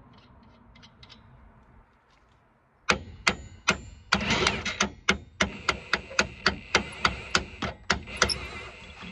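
A hammer striking steel at a car's rear suspension knuckle: after a few faint light ticks, about twenty sharp metallic strikes at roughly four a second begin about three seconds in, knocking a suspension bolt out.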